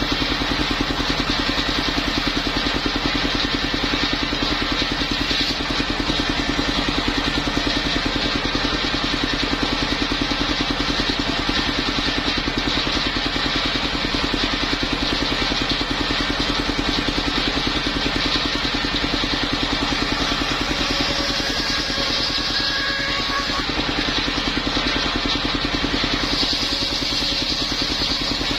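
The engine driving a mobile circular sawmill runs steadily, with a fast, even firing rhythm under a constant drone.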